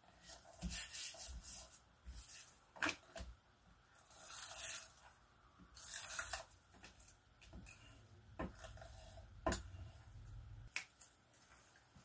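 Paper and cardstock being handled on a work surface: bursts of rustling and scraping, with several sharp taps and clicks.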